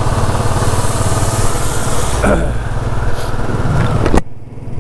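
Royal Enfield Classic 350's single-cylinder engine running at riding speed, with a rushing hiss of wind and wet road. The sound drops away suddenly about four seconds in.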